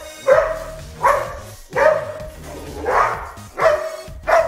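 Belgian Malinois barking at a man in protection training: six sharp barks, about one every three-quarters of a second with a short pause midway, over background music.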